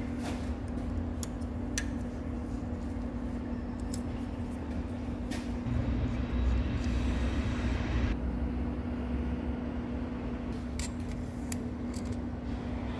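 Steady machine-shop hum with scattered light metallic clicks and taps from tool handling at a stopped lathe: a carbide turning insert being changed in its holder with a hex key, and calipers set against the bar. A louder rushing noise swells from about six to eight seconds in.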